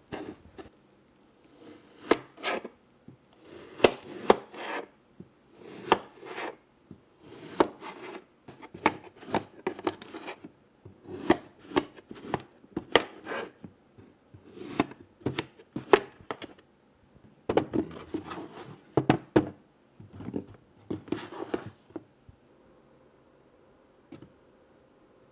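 Kinetic sand being worked by hand and tool: a series of short, crunchy scrapes, about one every second or so, that stop a few seconds before the end.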